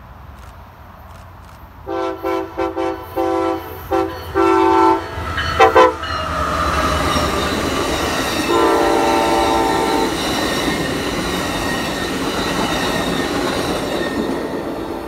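Amtrak passenger train's multi-chime air horn playing a horn show: a quick string of short blasts, one longer blast and two sharp final toots. The train then runs past at speed with its wheels rumbling on the rail and another horn blast in the middle of the pass, the noise easing off near the end.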